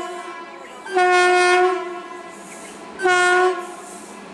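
Horn of an approaching WAP-5 electric locomotive sounding two loud blasts on one steady pitch, the first about a second in and the second, shorter, about three seconds in, just after the end of an earlier blast. The train's running rumble grows underneath.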